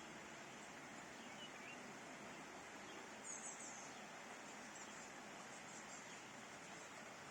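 Faint, steady hiss of a rain shower, with a few short, high bird chirps, the clearest about three seconds in.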